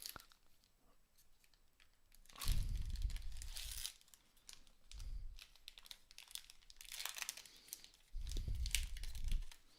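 Plastic trading-card pack wrapper being torn open and crinkled in several short bursts of rustling, with the cards handled.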